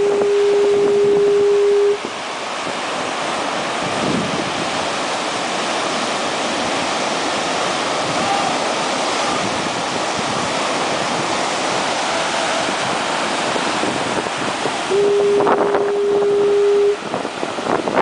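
A foghorn sounding twice, each a single steady tone about two seconds long, the blasts about fifteen seconds apart, over the constant wash of breaking surf.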